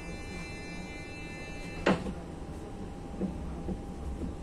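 Door-closing warning of a CityElefant electric commuter train: a steady high chord of tones that stops just under two seconds in with a sharp knock as a door shuts. The stopped train's low electrical hum runs underneath.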